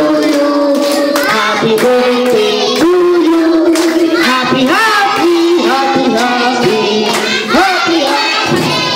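A group of voices, children's among them, singing a birthday song to a lit birthday candle, with hands clapping along.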